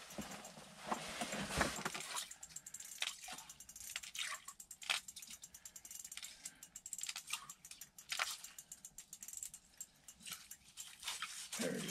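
Fishing tackle and clothing being handled: irregular light clicks, small rattles and rustling, with no steady rhythm.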